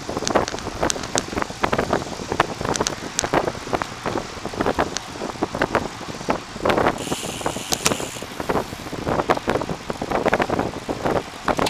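Wind rushing over the microphone of a camera on a moving bicycle, with frequent irregular knocks and rattles as the bike rolls over the path. A brief high hiss comes in about seven seconds in.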